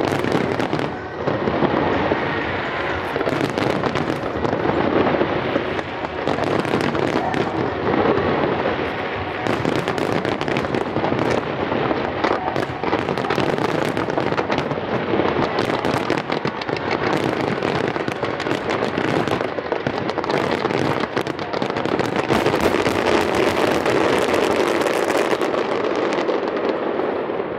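Fireworks display at its finale: a dense, unbroken barrage of aerial shell bursts, with many rapid bangs overlapping, easing slightly near the end.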